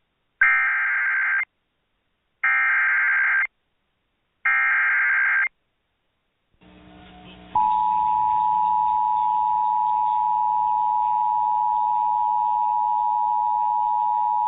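Emergency Alert System data header: three one-second bursts of harsh digital warbling with short gaps between them. After a brief silence and faint radio hiss, a loud, steady two-tone EAS attention signal starts about seven and a half seconds in and keeps sounding, the alarm that comes before a new warning message is read.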